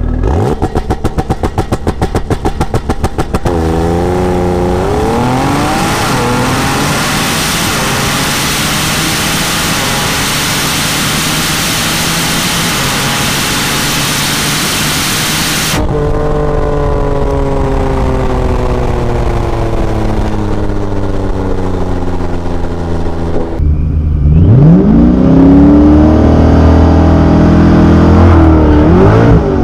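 Ford GT V8 engine at the drag strip. It starts with a quick pulsing note, then accelerates hard, its pitch climbing through the gears. After a cut the note falls as the car slows, and near the end it revs up loud again, heard inside the cabin of the 2005 Ford GT with its supercharged 5.4-litre V8.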